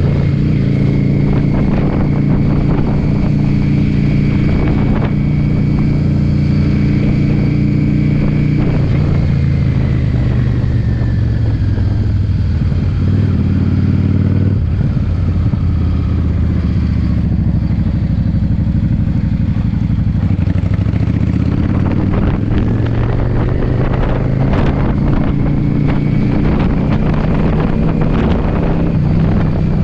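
Yamaha V-Star V-twin motorcycle engine running at road speed, heard from the rider's position. It slows down about a third of the way in, then picks up speed again about two-thirds through. Gusty wind buffets the microphone.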